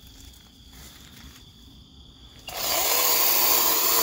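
Cordless electric chainsaw starting up after about two and a half seconds and then running steadily as it cuts back dead brush.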